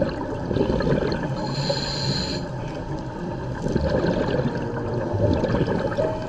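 Scuba diver breathing through a regulator underwater: a short hiss of inhalation about a second and a half in, and a longer rush of exhaled bubbles in the second half.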